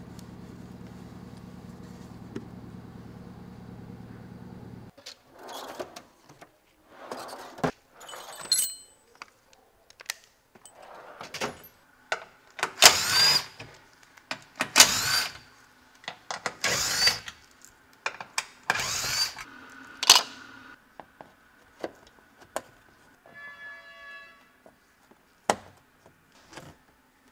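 A steady low hum, then a cordless power tool run in a string of short bursts, each spinning up in pitch, while screws on a car's plastic underbody panel are driven, with clicks and knocks between them. A brief buzzing tone comes near the end.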